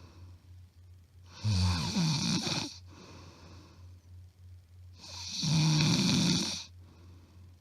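A woman snoring loudly, recorded up close: two long snores about three and a half seconds apart, with quieter breathing between. The uploader says it is plain loud snoring, not sleep apnea.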